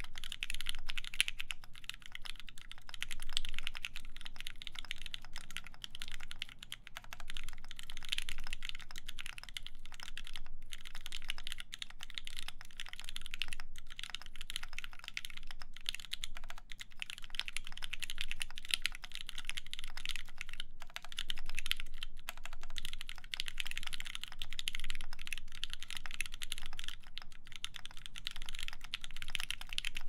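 Steady, fast two-handed typing on an LZ Phase mechanical keyboard with lubed H1 switches, a full carbon-fiber plate and GMK keycaps: a dense, continuous stream of key clacks with only a few brief pauses.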